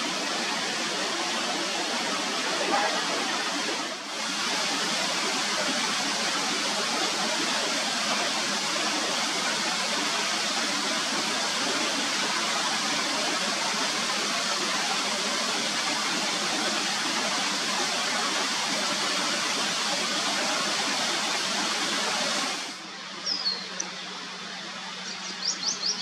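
Steady rushing outdoor noise that drops away suddenly about three-quarters of the way through, leaving a quieter background. Near the end come a few short, high hummingbird chirps.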